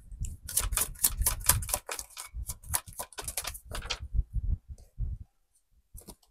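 A deck of tarot cards being shuffled by hand: a fast run of papery card flicks and clicks that thins out about four seconds in and stops shortly before the end.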